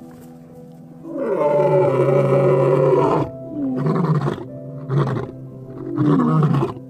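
Lion roaring: one long, loud roar followed by three shorter grunting calls that drop in pitch. Background music with steady held notes plays underneath.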